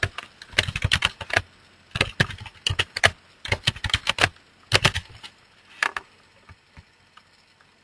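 Typing on a computer keyboard: several quick bursts of keystrokes, ending with a last few clicks about six seconds in.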